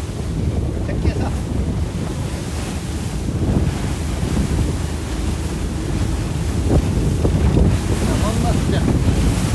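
Wind buffeting the microphone over rushing water from a speedboat under way: a steady, loud, low rumble.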